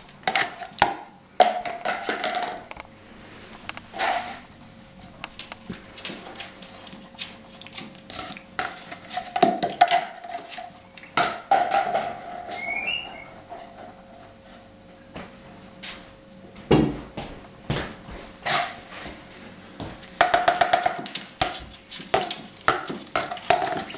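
An African grey parrot pecking and tapping its beak on a laminate countertop and a cardboard box: an irregular run of sharp taps, knocks and short scrapes.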